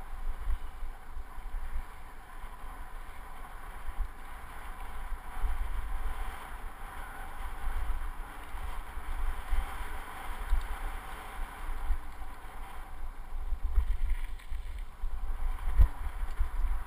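Wind buffeting an action camera's microphone as a mountain bike rolls fast down a dirt singletrack. Underneath are the hiss of the tyres on dirt and scattered knocks from bumps, with a sharper knock near the end.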